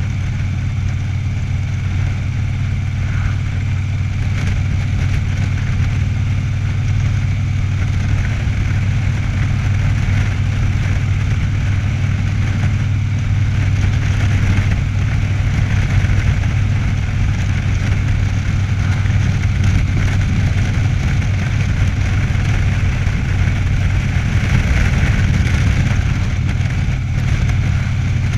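Cruiser motorcycle engine running steadily at road speed, a constant low drone with an even level and no change in pace.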